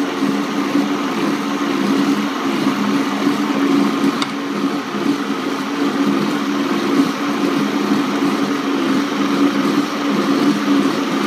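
Vitamix 750 blender motor running at a steady pitch, blending cooked chicken and spinach into hot potato soup in the 64-ounce container.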